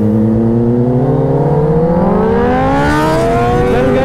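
Kawasaki ZX-10R's inline-four engine accelerating hard under full throttle, its pitch climbing steadily through a gear, with an upshift near the end where the pitch drops and starts rising again. Wind noise grows as speed builds.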